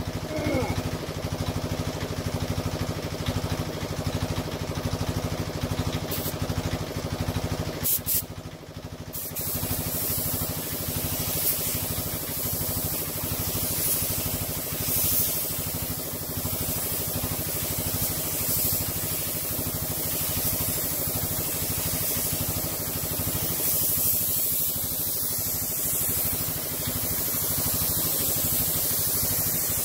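An air spray gun hissing steadily as it lays the last coat of paint on a van's side panels, starting about nine seconds in, over a steady mechanical hum that runs throughout, most likely the compressor feeding the gun.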